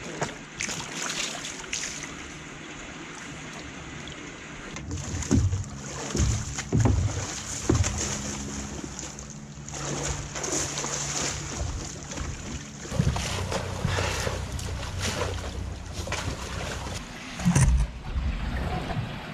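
Water splashing and sloshing in large plastic tubs as a sea otter and a black bear play in them, with several sharp, loud splashes and knocks against the tub.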